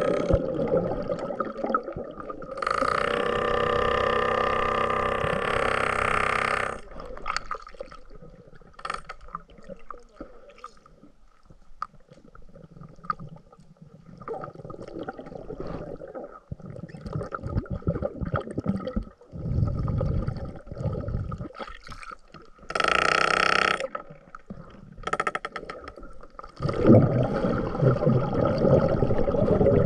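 Muffled underwater sound picked up by a submerged camera: gurgling water and bubbles that come and go. A steady pitched whine runs for about four seconds near the start and returns briefly later, and the water noise grows louder near the end.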